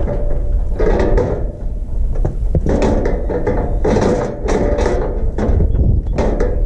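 Steel cattle squeeze chute rattling and clanking in repeated short bursts as the calf held in its headgate shifts about, over a steady low rumble.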